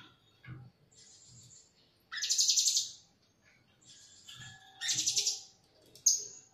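Blue-crowned hanging parrots calling: two loud, rapidly stuttering, buzzy shrill calls about two and five seconds in, each close to a second long, with a short sharp call just after six seconds and fainter high notes between them.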